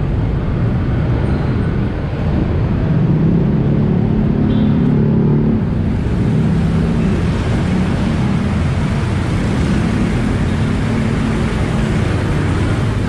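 Motorcycle being ridden in city traffic: its engine runs steadily under a loud rumble of road and wind noise, with the engine note coming up more strongly a few seconds in and again in the middle.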